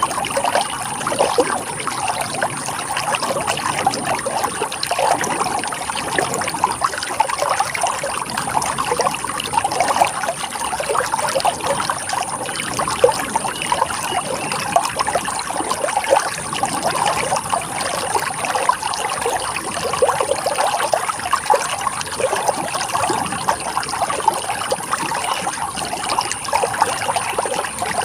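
Running water flowing steadily, a continuous rush with a dense patter of small splashes.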